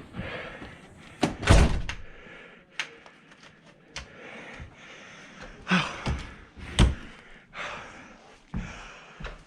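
A door being opened and banged shut, with a series of knocks and thumps, the loudest about a second and a half in and again near seven seconds.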